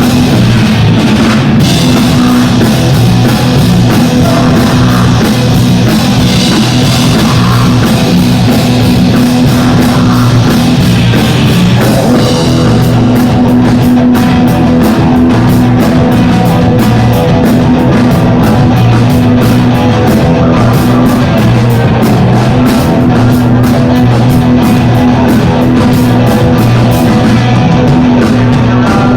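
A live rock band playing loudly, with guitar, a heavy bass line and a drum kit; the drumming gets busier about halfway through.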